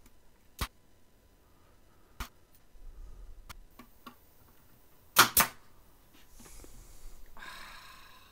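A few sharp single knocks and taps, then two loud knocks close together about five seconds in, followed by a short scraping rustle near the end.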